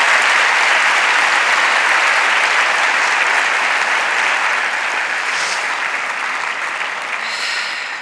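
A large seated audience applauding steadily, the clapping fading gradually over the last few seconds.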